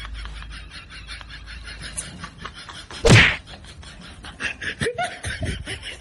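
A single loud, sudden whack about three seconds in, over faint rhythmic background sound.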